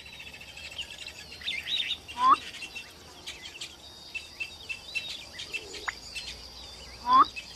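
Savanna bird chorus: many birds chirping and trilling, with two louder sweeping calls, one about two seconds in and one near the end.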